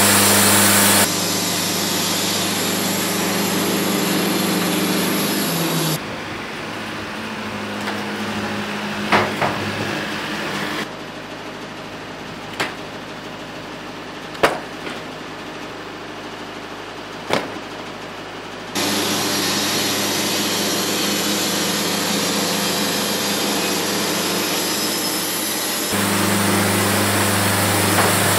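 Wood-Mizer portable sawmill running steadily, its engine driving the band blade through a juniper log. In a quieter stretch in the middle, a few sharp wooden knocks are heard as sawn slabs are tossed onto a pile.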